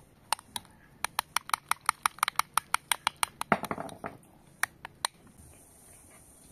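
Whisk or fork beating a white foam in a glass bowl: fast, even clinks against the glass, about seven a second for a couple of seconds, ending in a short scrape, with two more single clinks a little later.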